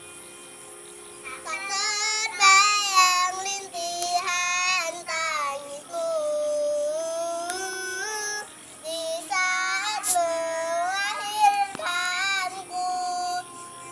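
A young girl singing a melody alone, with long held notes that waver and bend, in phrases that begin about a second and a half in.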